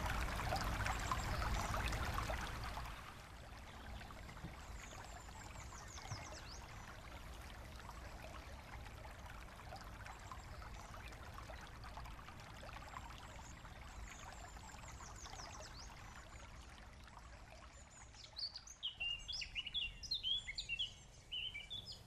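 Floodwater rushing for the first few seconds, then a shallow brook running quietly over stones. Songbirds chirp now and then, and a bird sings more strongly near the end.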